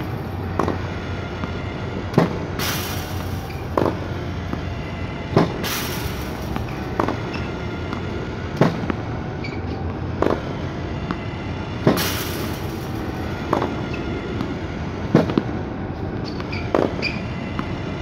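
Lobster Elite 2 tennis ball machine running with a steady motor hum, launching a ball with a sharp pop about every one and a half seconds, eleven times in a row.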